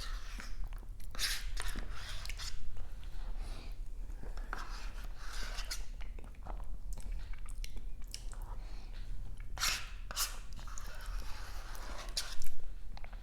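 Close-miked chewing and biting of food, irregular, with sharp clicky mouth sounds and a louder burst near the end.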